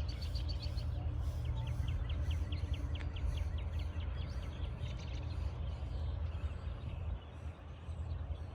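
A songbird calling in a rapid series of short chirps, about five a second, after a brief higher run at the start, over a steady low rumble.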